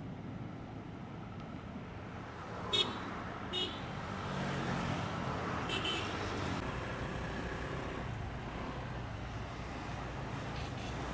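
Highway traffic: a steady rumble of passing vehicle engines and tyres. A vehicle horn gives two short toots about three seconds in, then another brief double toot around six seconds in.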